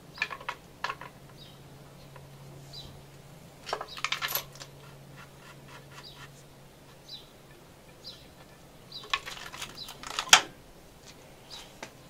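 Small metal parts and tools clinking and rattling in three short clusters: at the start, around four seconds, and around nine to ten seconds. A single sharp clink near ten seconds is the loudest.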